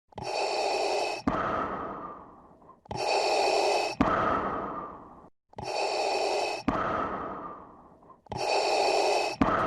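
A looped, breath-like sound effect repeating four times, about every 2.7 s. Each cycle is a held sound of about a second that cuts off, followed by a sharp hit that fades away.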